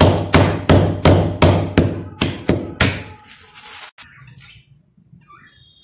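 A stick pounding hard orange fruit candies inside a plastic bag, about three strikes a second, crushing them. The pounding stops about three seconds in, followed by a brief rustle.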